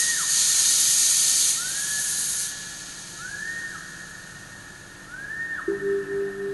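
Soundtrack sound effects: a loud high hiss that drops away over the first couple of seconds, and a whistle-like call that rises and falls, repeated about every second and a half. Near the end a low, pulsing humming tone comes in.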